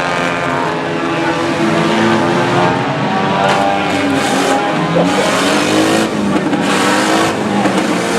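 Several banger racing cars' engines running hard around the track, their pitch rising and falling as they rev up and back off.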